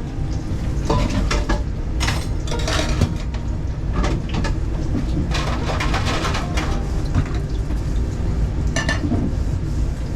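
Metal utensils and cookware clattering in a food-truck kitchen: irregular clinks and knocks of pans, dishes and cutlery, over a steady low rumble.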